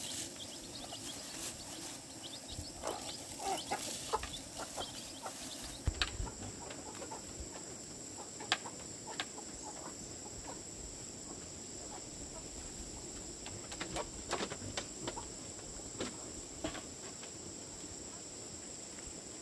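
Chickens clucking, with scattered clicks and knocks; a steady high-pitched tone comes in about six seconds in and holds.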